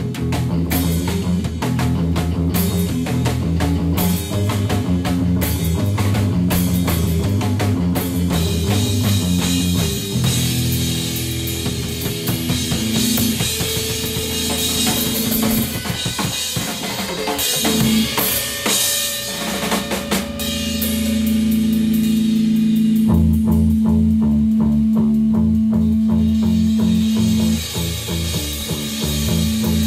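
Rock band playing an instrumental passage on drum kit and guitars: dense, fast drumming at first, then sustained guitar notes, with one long note held for several seconds while the drums come back in underneath.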